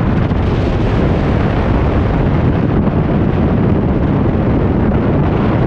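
Strong wind buffeting the microphone outdoors: a loud, steady rumbling rush, heaviest in the low end.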